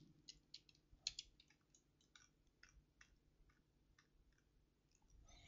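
Near silence, broken by faint, irregular clicks from a computer mouse and keyboard being worked.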